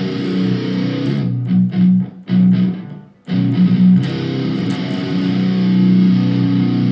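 Electric guitar played through an amplifier: a few short low notes or chords with brief breaks, then a low chord held from about three seconds in.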